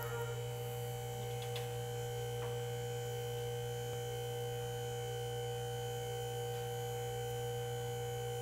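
Bendpak SP-7X scissor lift's hydraulic power unit running as the lift rises: a steady, unchanging motor hum with a faint whine above it.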